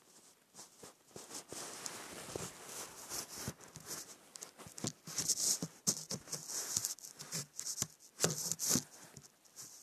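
Irregular close scratching, rubbing and rustling with light taps, heaviest about halfway through and again near the end: handling noise as the phone is moved low along carpet and wooden boards.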